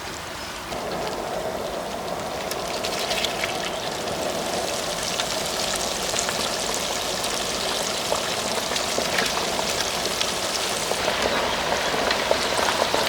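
Food frying in hot oil: a steady crackling sizzle that sets in about a second in.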